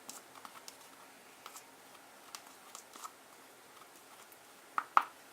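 A toothpick stirring a cornstarch and dish soap mixture in a bowl, making scattered small clicks and wet ticks, with two sharper clicks near the end.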